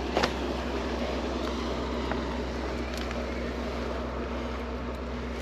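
Steady low drone of a passing canal boat's engine.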